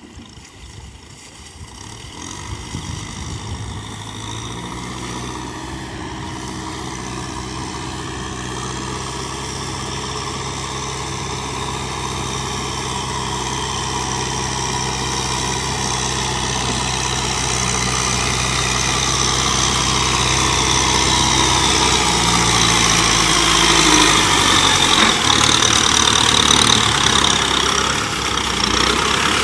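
Kubota M6040SU tractor's four-cylinder diesel engine running as the tractor approaches, growing steadily louder. A few seconds before the end the engine note drops lower.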